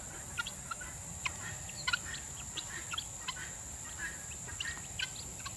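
Guinea fowl flock giving short, scattered chirping calls, about two or three a second, over a steady high-pitched insect drone.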